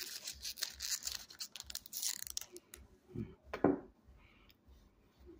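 Topps baseball card pack wrapper being peeled open and crinkled by hand: a dense crackling rustle for about two and a half seconds, followed by two short low thumps.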